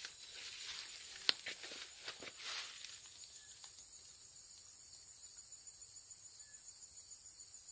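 Hands handling a plastic trail camera strapped to a tree, with rustling and one sharp click about a second in, over a steady high-pitched insect chorus. The handling dies away after about three seconds, leaving the insects.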